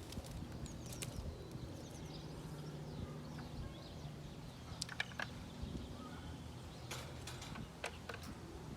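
A few sharp, irregular knocks and clicks, a couple of them doubled, over a low steady hum, with faint bird chirps.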